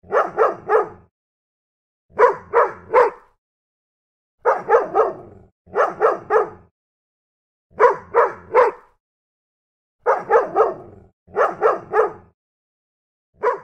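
A dog barking in quick runs of three sharp barks, repeated about every two seconds, with dead silence between the runs.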